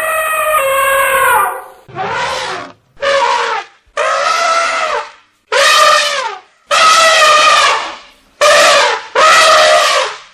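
African elephant trumpeting: a run of about eight loud brassy trumpet calls, each roughly a second long with short gaps between, several dropping in pitch at the end.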